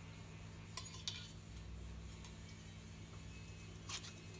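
Metal wire clothes hangers clinking against each other and the metal rail as fabric on them is pushed along: a few scattered clinks, the loudest about a second in and another near the end.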